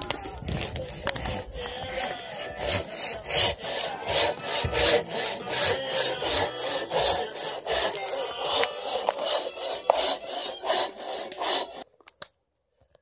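Hand saw cutting through a fallen log in steady back-and-forth strokes, about two to three a second; the sawing stops abruptly near the end.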